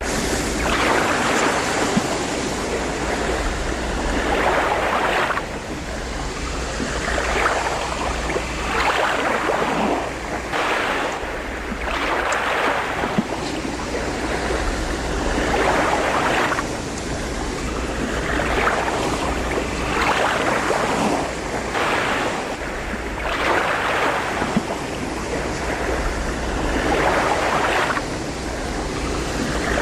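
Ocean surf with wind: waves wash in and break in surges, one every second or two, over a steady low rumble of wind.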